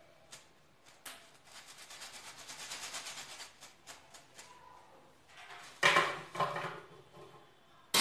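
A batch of rice-flour batter fingers sizzling and crackling in hot oil in a steel kadhai after being lowered in, rising for a couple of seconds and then dying down. Two loud clatters of metal kitchen utensils follow, one about six seconds in and one at the very end.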